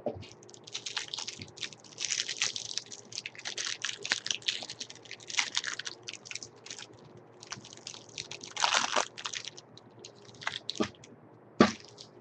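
Plastic trading-card pack wrapper crinkling and crackling in irregular bursts as it is torn and peeled open by hand, with a louder stretch of crinkling about two-thirds of the way in and a single sharp tap near the end.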